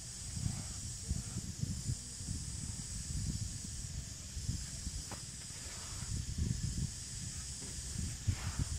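Wind buffeting the microphone in irregular gusts of low rumble, under a steady high-pitched hiss. A few faint short sounds come about halfway through and again near the end.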